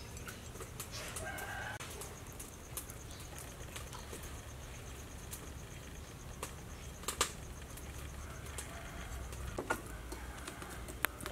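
Chickens clucking faintly in the background, with a few light clicks.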